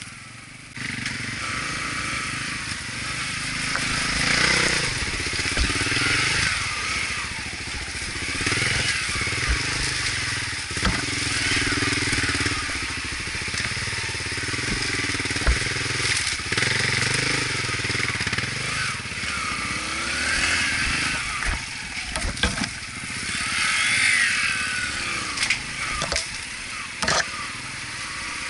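Motorcycle engine running on a dirt trail ride, its pitch rising and falling with the throttle, with scattered sharp knocks.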